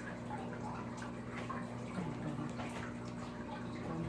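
Soft, wet clicks and squelches of slime being handled and dropped into a bowl, over a steady low hum.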